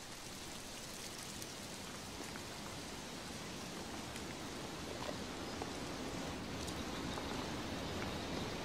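A steady, even hiss of ambient noise, slowly growing louder, with a few faint ticks.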